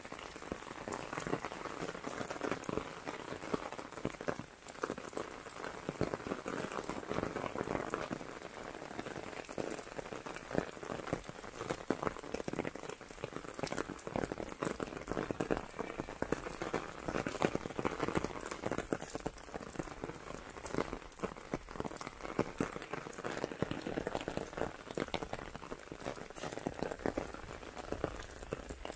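Steady rain falling, a dense patter of many small drop hits over an even hiss.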